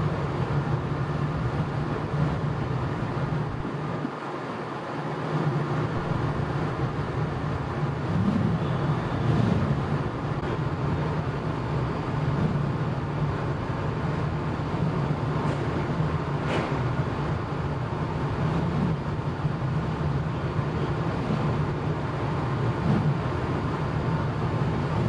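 Steady low drone of the ferry Akashia's engines and machinery under way, over an even rushing noise, with one brief sharp click about two-thirds of the way through.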